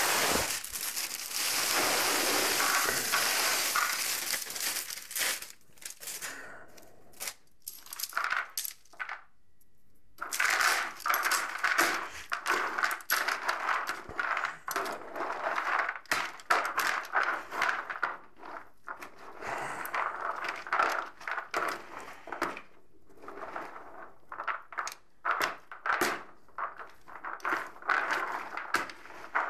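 For the first few seconds a plastic bag rustles as more sunflower-cake (makukha) pellets are poured into a plastic bucket. Then, after a short pause, a hand mixes boiled peas and the pellets in the bucket: a long run of irregular crunching and rattling, with brief gaps.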